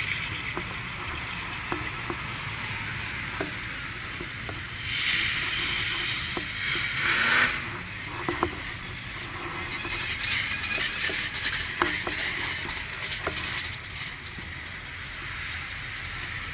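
Car noise with a low rumble, scattered light clicks, and a swell of hiss from about five to eight seconds in.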